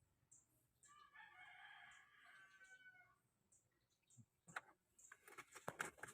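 A rooster crowing once, faint, for about two seconds. It is followed near the end by a run of sharp clicks and knocks.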